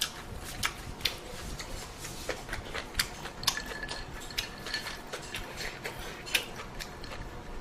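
Utensils clicking and tapping irregularly against a bowl as someone eats ramen, a few clicks sharper than the rest.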